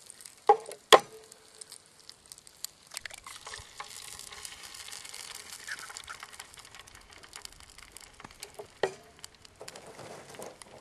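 Eggs frying in hot bacon grease in a pan over a small wood fire, with a steady sizzle and crackle. Two sharp taps about half a second apart near the start are an egg being cracked on the pan. The sizzle swells a few seconds in as the egg hits the grease, and another tap comes near the end.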